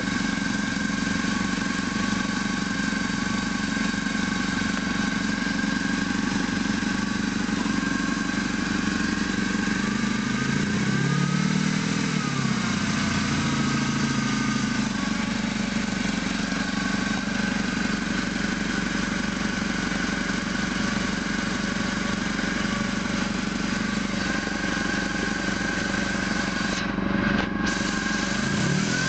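ZMZ-409 2.7-litre four-cylinder petrol engine idling steadily and evenly, with no knock now that its broken lower timing chain and the upper chain have been replaced. Its speed briefly rises and falls about eleven seconds in, and it revs up near the end.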